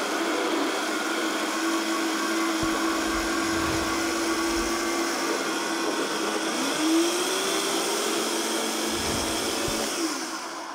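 High-powered countertop blender running steadily as it purées beans, tomato, onion, garlic and water into a smooth soup, with a tamper worked through the lid. Its motor pitch rises a little about two-thirds through, with low rumbles twice, and it winds down near the end.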